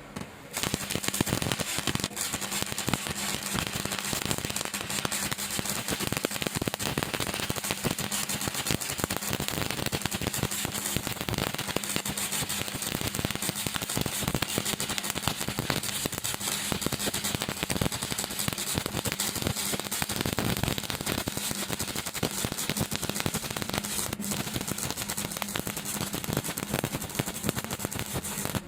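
Stick-welding arc crackling and sputtering steadily as a bead is run. The arc is struck about half a second in and broken off at the end.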